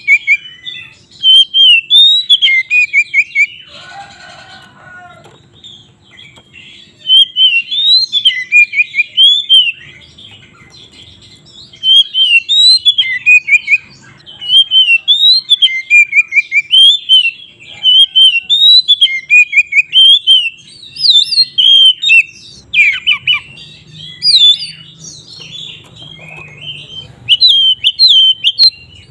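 Oriental magpie-robin singing in the loud, combative 'ngeplong' style: fast runs of sweet, sliding chirps in phrases a few seconds long, with short pauses between. About four seconds in comes a brief harsher, lower call.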